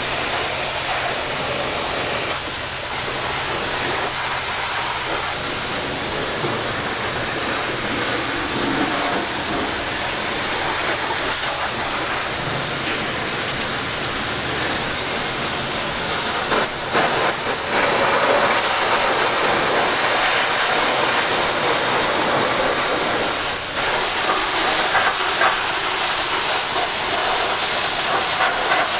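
High-pressure car wash spray wand blasting water over an engine bay: a steady, loud hiss of spray hitting the engine, briefly broken a couple of times in the second half.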